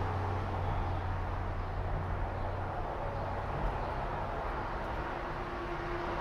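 Steady background rumble and hiss, with a low hum in the first half that fades out.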